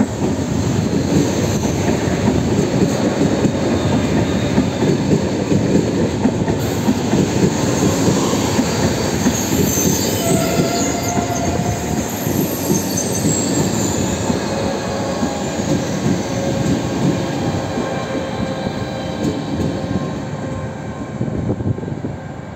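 Frecciargento Pendolino high-speed trainset running past along the platform: a steady rumble of wheels on rail and carriages rolling by, with thin wheel squeals rising over it in the middle.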